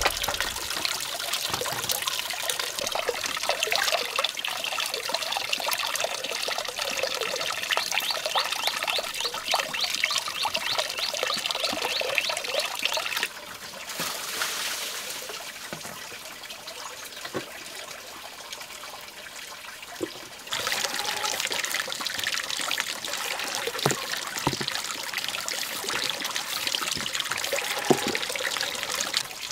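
Water trickling and splashing steadily, dropping to a quieter stretch for several seconds in the middle before returning.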